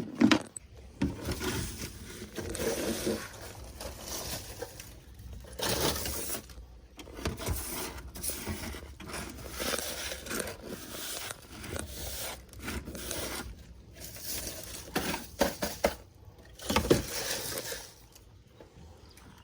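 Irregular scraping and rustling as old boat carpet is pulled and torn out of the hull, with a few sharp knocks.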